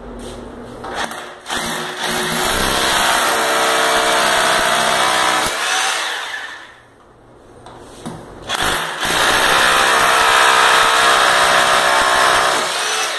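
Corded rotary hammer drill boring into ceramic wall tile for wall-plug holes. After a couple of brief starts it runs steadily for several seconds, stops for about two seconds, then runs again for a second hole.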